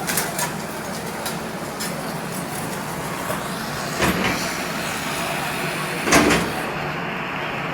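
Steady outdoor street noise, like vehicles and a busy roadside, with a few clicks near the start and two louder short sounds about four and six seconds in.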